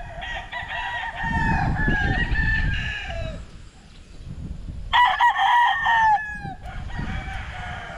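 Gamefowl roosters crowing: one long crow of about three seconds, then a second, louder crow about five seconds in.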